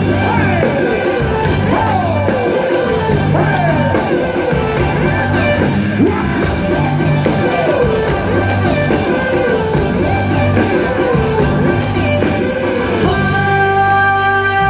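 Live band music with a male singer: a voice sings repeated phrases that glide downward, over drums, bass and keyboards. About a second and a half before the end, the band settles into a held, sustained chord.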